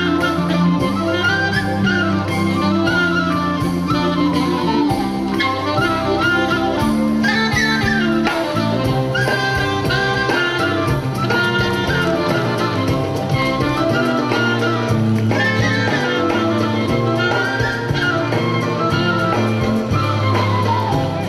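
Band music with horns playing a jazzy melody in rising and falling phrases over sustained low notes.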